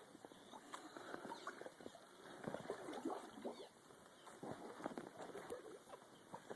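A flock of small birds twittering around their nests: many quick, overlapping chirps and squeaks, faint and irregular.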